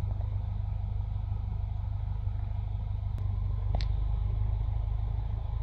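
Cessna 172's engine and propeller running at low taxi power: a steady low drone heard inside the cabin. Two brief clicks stand out a little past the middle.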